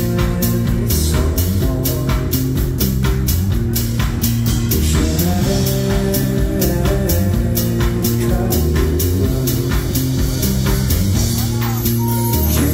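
Live band music played loud through a concert PA, recorded from the audience: a steady beat at about two a second over sustained chords and a heavy bass line.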